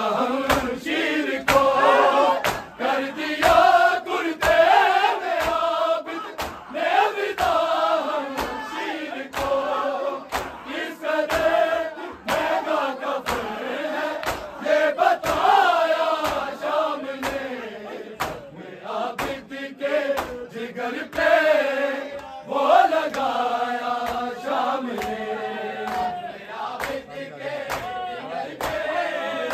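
A group of men chanting a noha (Shia mourning lament) in unison, with the hand-on-chest slaps of matam keeping a steady beat under the voices.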